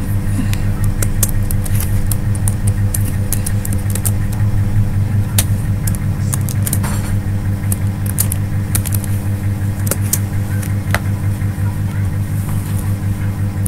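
Computer keyboard keys clicking in short, irregular runs as code is typed, over a steady low hum.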